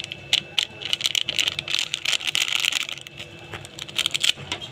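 Crinkling and light clicking of a plastic spice packet being shaken as masala powder is poured into a pot of chickpeas, in a run of short irregular crackles.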